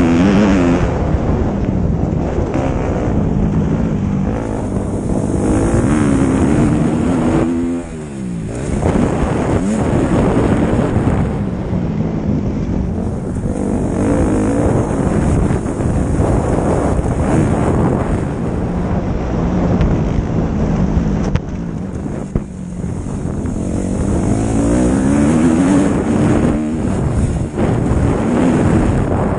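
Motocross bike engine under hard throttle, its revs repeatedly rising and falling through the lap and dropping off sharply about eight seconds in, with heavy wind buffeting on the on-board microphone.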